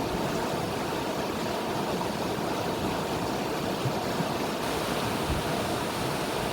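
River water running over rocks: a steady, even rush of flowing water with no pauses.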